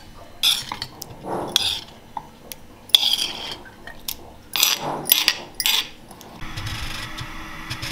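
A metal spoon scraping and clinking against a flat stone grinding slab and a glass bowl as ground chutney is scooped off the stone: a series of sharp scrapes and clinks, about eight of them. A steady low hum takes over in the last second and a half.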